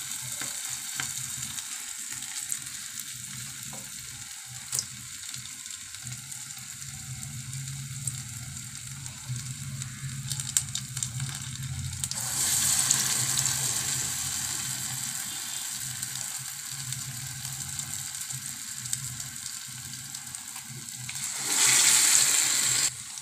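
Medu vada batter deep-frying in hot oil in a pan: a steady crackling sizzle that swells sharply when a fresh vada is dropped in, about halfway through and again near the end.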